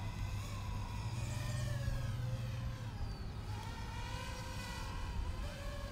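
JME drone's motors and propellers running in flight, a steady whine whose pitch wavers gently up and down as the drone climbs.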